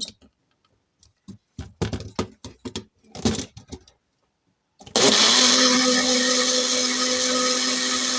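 Magic Bullet personal blender blending a tomato-garlic sauce with added cream. After a few short knocks, the motor starts suddenly about five seconds in and runs loud and steady at one pitch.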